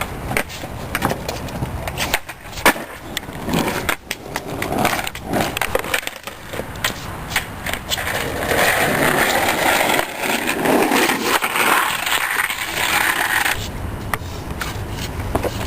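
Skateboards on wet pavement: scattered sharp clacks of boards striking the ground, and from about eight seconds in a steady rush of wheels rolling that cuts off suddenly some five seconds later.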